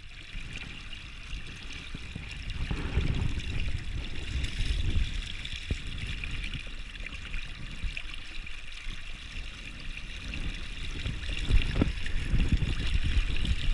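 Clear river water running and rippling over a stony bed close to the microphone, a steady rushing wash with a low rumble underneath.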